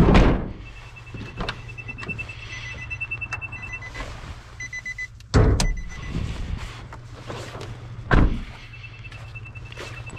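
Doors of a Nissan NV200 van being shut: a heavy thunk at the start, then two more thumps about five and eight seconds in. A rapid electronic warning chime beeps in between and again near the end, over a steady low hum.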